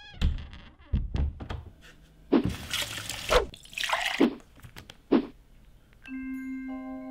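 Dishes knocking and clinking with water splashing into a glass dish in two short runs, then, about six seconds in, soft ringing mallet-percussion music sets in with held notes.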